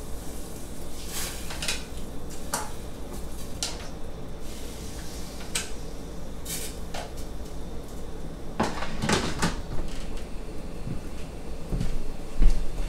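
Wooden chopsticks and a plastic strainer basket clicking and tapping against a stainless steel saucepan as konjac noodles go into boiling broth, a scatter of light knocks over the steady noise of the simmering pot on the gas burner. A louder low thump comes near the end.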